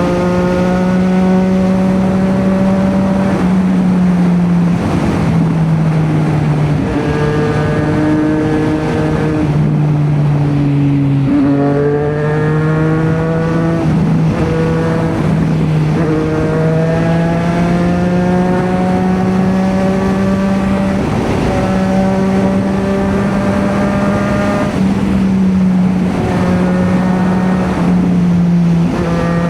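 Triumph Street Triple RS 765 inline three-cylinder engine running through an SC Project S1 slip-on exhaust while riding. The note holds fairly steady, rises slowly and drops back several times as the throttle and gears change.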